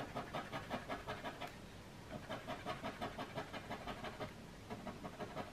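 Palette knife scratching stripes into a layer of oil pastel on card, in quick short strokes of about five a second, with brief pauses near two seconds in and again near the end.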